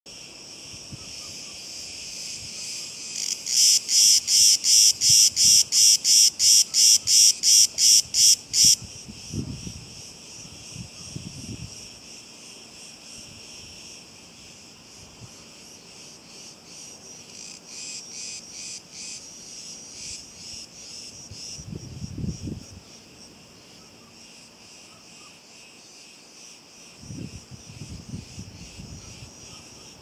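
Cicadas singing in the summer heat: a steady high buzz, with one loud nearby cicada pulsing rapidly, about three pulses a second, for about five seconds near the start before the chorus carries on more softly. A few brief low rumbles come and go.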